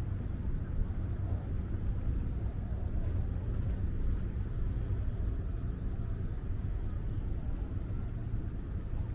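Steady low hum of a docked passenger ferry's engine idling at the pier.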